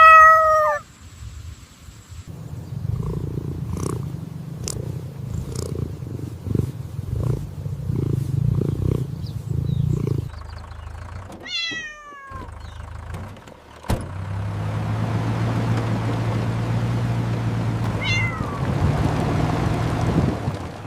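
Cartoon sound effects: a short high animal squeal, then a pulsing low rumble, another falling squeal, and after a sharp click a steady low mechanical hum with hiss, with one more brief squeal near the end.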